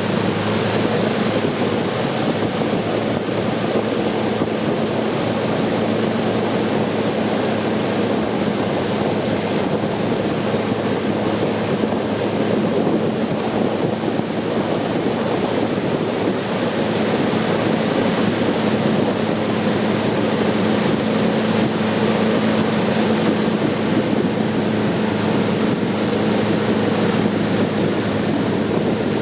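Long-tail boat engine running steadily under way, an even drone over the rush of water and wind on the microphone.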